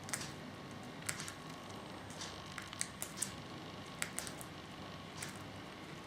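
Budgerigar eating, its beak cracking and husking seeds in a series of small sharp clicks that come at uneven intervals, about eight of them.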